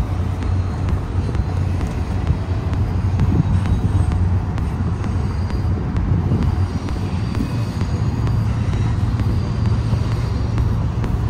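Steady low rumble of road traffic mixed with a long freight train crossing a railway overpass.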